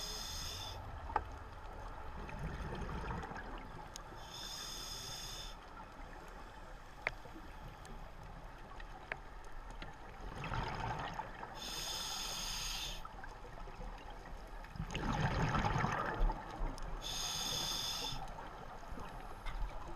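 A scuba diver breathing through a regulator, heard underwater from the diver's own GoPro: four short, high hisses of inhalation several seconds apart, with lower rushes of exhaled bubbles between them.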